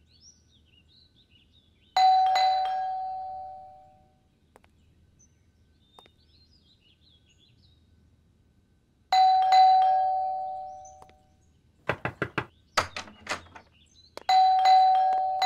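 Two-tone ding-dong doorbell rung three times, about two, nine and fourteen seconds in, each chime fading away. Between the second and third rings there is a quick run of knocking on the door by hand. No one answers the door.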